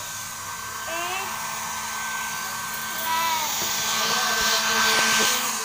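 Handheld hair dryer running steadily, a blowing hiss with a steady high whine, drying a wet long-haired cat's fur; it grows louder about three seconds in.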